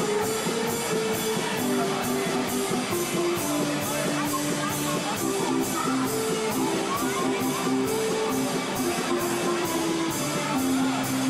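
Instrumental music with a simple melody of held notes over a steady beat of a little over two beats a second.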